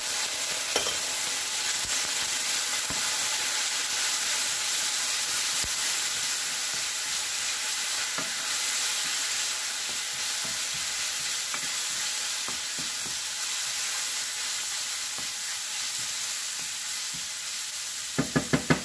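Onion slices and minced garlic sizzling steadily in hot oil in a nonstick pan, stirred with a wooden spatula that scrapes and clicks against the pan now and then. A quick run of sharp knocks near the end.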